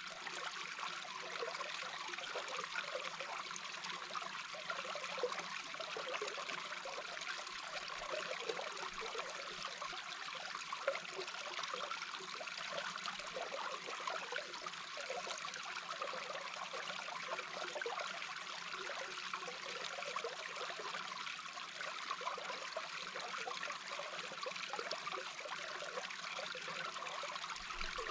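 A small babbling brook heard underwater: a steady rush of flowing water, with a dense, even flicker of small bubbling.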